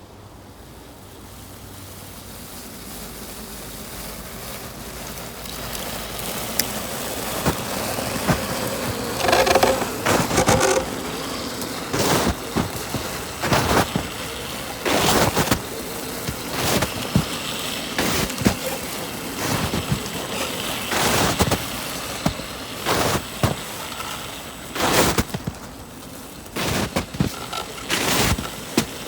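Snow crunching in a series of sharp, irregular crunches a second or two apart, after a slow build, as an RC rock crawler truck creeps through deep snow.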